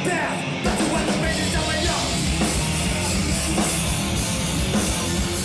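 Loud heavy hardcore music from a full band, distorted guitars over drums, coming in hard about half a second in.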